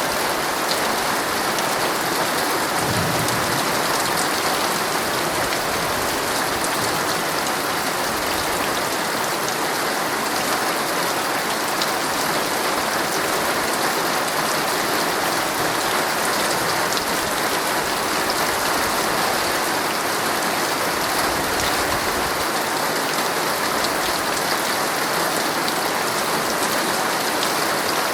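Heavy rain drumming steadily on a tent's fabric, a dense, even hiss of drops with fine individual ticks scattered through it.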